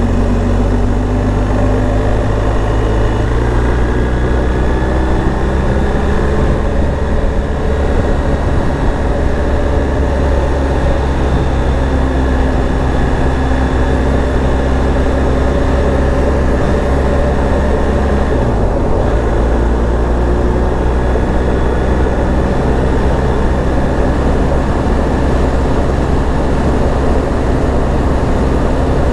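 BMW R 1250 GS Adventure's boxer-twin engine running steadily while riding. The engine note shifts in pitch about three seconds in and again about two-thirds of the way through.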